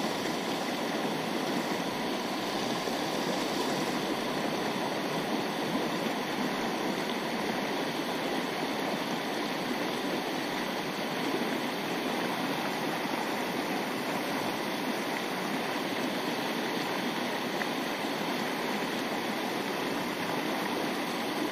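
Fast, shallow rocky river running over boulders and riffles: a steady, even rush of water.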